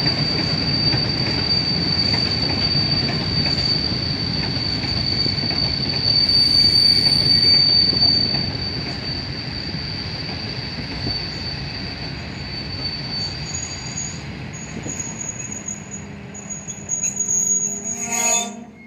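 Freight train of open-top wagons rolling past: a steady rumble of wheels on rail with a high, steady squeal running over it. For the last few seconds the squeal moves to a higher pitch, and near the end a short burst of noise is followed by the sound dropping away.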